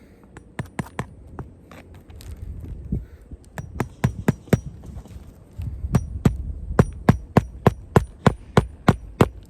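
Hammer striking a roofing nail through a shingle. There are a few scattered taps first, then a steady run of about ten blows, about three a second, in the last few seconds.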